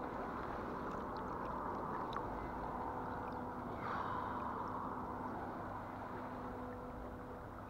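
Steady rush of flowing river water, with a few faint ticks and a brief swell of sound about four seconds in.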